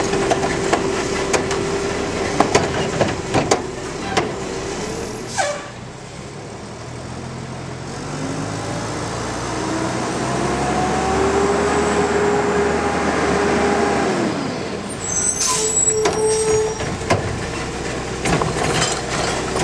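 McNeilus front-load garbage truck with a Curotto Can automated cart arm. Its hydraulics whine steadily while the arm tips a cart, with knocks and clanks and a loud clank about five seconds in. Then the diesel engine revs up as the truck drives on, the air brakes hiss about fifteen seconds in, and the hydraulics whine again with knocks as the next cart is lifted.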